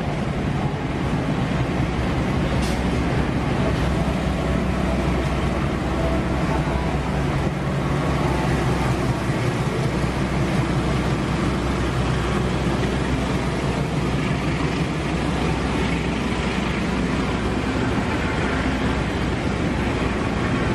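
Steady running noise of a passenger train in motion: an even rumble of wheels on track with a low drone underneath.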